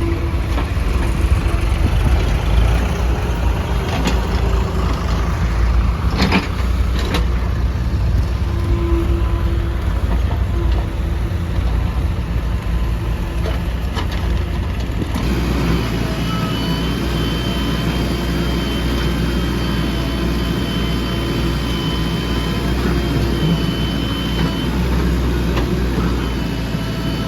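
Mahindra backhoe loader's diesel engine running steadily, with a few sharp knocks a few seconds in. About halfway the sound shifts and a thin high whine joins the engine for about ten seconds.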